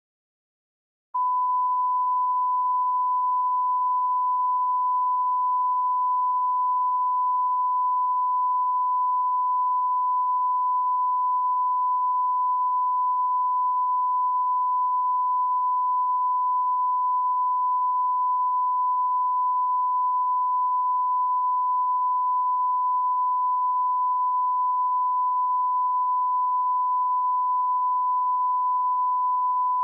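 Steady 1 kHz line-up reference tone accompanying broadcast colour bars, starting about a second in and held unbroken: the audio level reference laid at the head of a broadcast tape.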